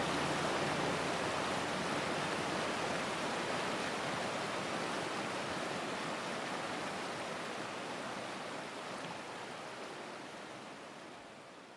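Rushing water, a steady even hiss that slowly fades out toward the end.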